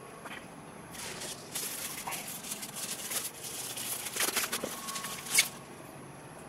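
Hands crinkling and rustling paper wrapping as it is pulled off. The sound is a dense run of sharp crackles lasting several seconds, with the loudest crackle near the end.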